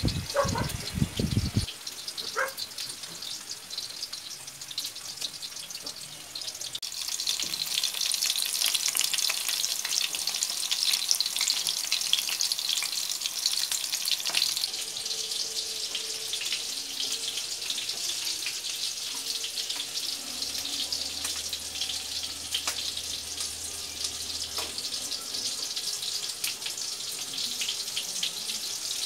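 Battered chicken pieces deep-frying in hot oil in a metal wok: a steady sizzle full of crackling pops, louder from about seven seconds in, with a few sharp clicks.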